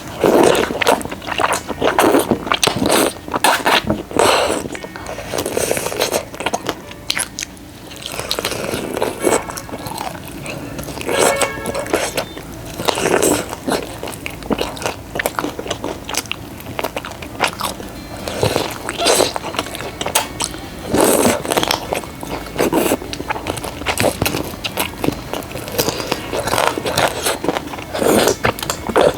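Close-miked biting and chewing of food, wet smacking and soft crunches throughout, with background music.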